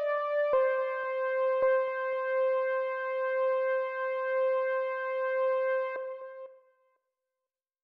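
Roland FA-08 synthesizer playing the closing of a keyboard piece. A note change comes about half a second in, then one long held note fades out about six to seven seconds in.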